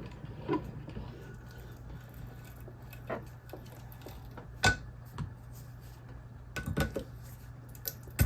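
Scattered metallic clicks and knocks of hand tools on a small transformer's steel casing clamped in a vise, as the casing is worked off; the sharpest knock comes about halfway through, with a quick cluster near the end. A steady low hum runs underneath.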